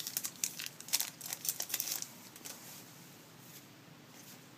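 Foil wrapper of an Upper Deck SPx hockey card pack crinkling and tearing as it is ripped open, a dense run of crackles for about two seconds, then only a few faint rustles as the cards come out.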